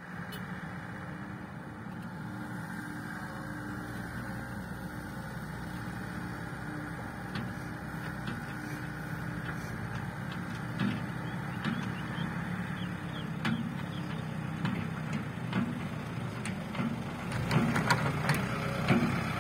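Diesel engines of a working excavator and a loaded dump truck running steadily, with a few sharp knocks partway through. Near the end the sound grows louder as the dump truck drives up close.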